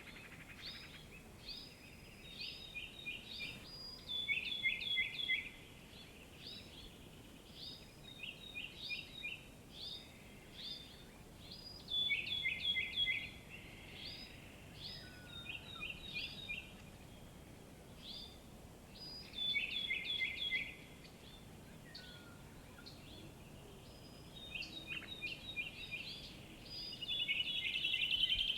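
Birds singing: short phrases of quick, high chirps repeated every few seconds, over a faint steady background hiss.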